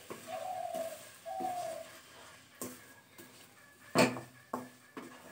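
Wooden spatula stirring and scraping wet semolina dough in a non-stick pan, with a few sharp knocks against the pan, the loudest about four seconds in. Two short tonal calls sound in the first two seconds.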